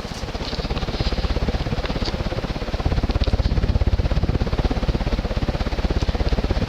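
Cast-iron ceiling fan running on high, its downdraft buffeting the microphone in a fast, even pulsing rumble that sets in abruptly at the start.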